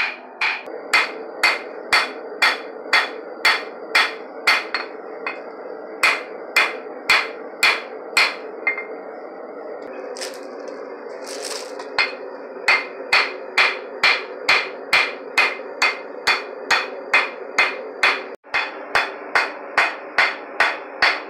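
Hand hammer striking red-hot steel on an anvil in a steady rhythm of about two ringing blows a second, forging a scythe blade's curve by hitting on one side. The blows stop for a few seconds near the middle, then resume. A gas forge burner hums steadily underneath.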